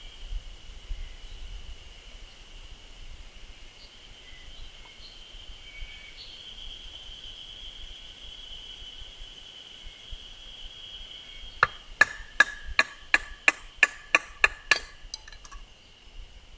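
A quick run of about a dozen sharp, ringing strikes, three or four a second, from tools hitting while splitting firewood, starting near the end. Under it, a steady high-pitched insect trill.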